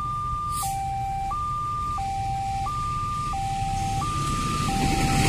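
Railway level-crossing warning alarm sounding its electronic two-tone signal, alternating low and high notes each lasting about two-thirds of a second, the warning that a train is approaching. Near the end, the rushing noise of the oncoming train begins to build.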